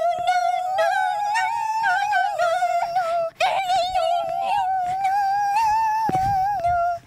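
A high-pitched female voice singing a wordless, wavering tune in long held notes, breaking off briefly about three seconds in and again near the end.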